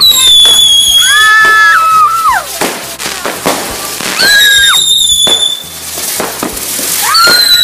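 Fireworks going off: three high piercing whistles that each slide slightly down, one near the start, one midway and one at the end, with crackling bangs between them. People scream along with the whistles.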